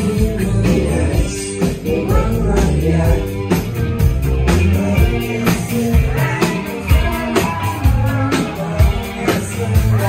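A rock band playing a song, with singing, electric guitar and drums.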